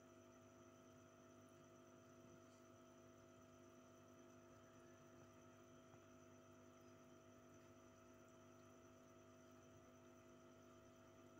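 Near silence with a faint, steady hum of several fixed tones from the aquarium's pump.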